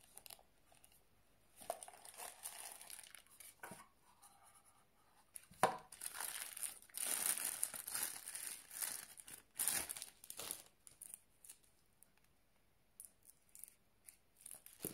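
Clear plastic wrapping crinkling and rustling as it is pulled off a wristwatch on its cushion, in irregular bursts, with a sharp click about five and a half seconds in.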